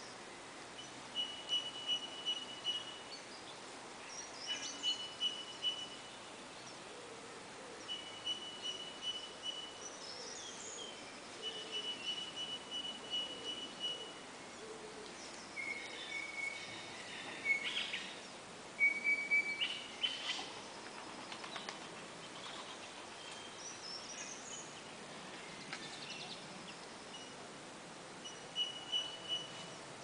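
Birds singing: one bird repeats a short, squeaky phrase of rapid notes held at one high pitch every few seconds, sounding like a rusty squeaky wheel, while other birds add brief rising notes over a steady background hiss.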